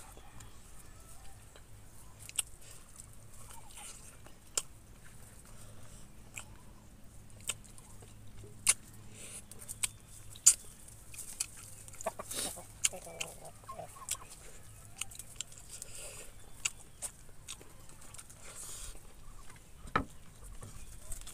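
Chickens clucking in the background, with scattered sharp clicks and smacks from someone eating rice by hand.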